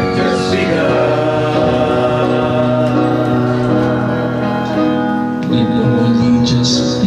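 Music: a song with singing voices over steady, sustained instrumental chords.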